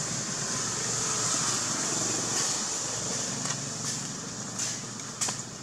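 Steady outdoor background noise: a high, even drone over a low rumble, with a few short clicks near the end.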